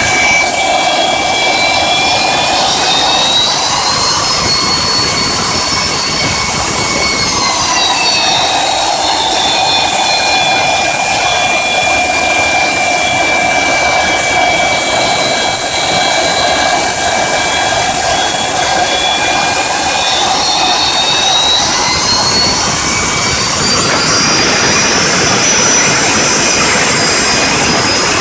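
Boeing 727's Pratt & Whitney JT8D turbofan running on the ground: a loud, steady jet roar with a high whine on top. The whine rises a few seconds in, falls back around eight seconds, and climbs again past twenty seconds.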